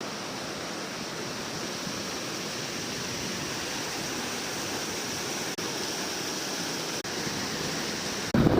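Steady rushing noise, broken by two very brief dropouts, then a sudden louder, gustier rush near the end.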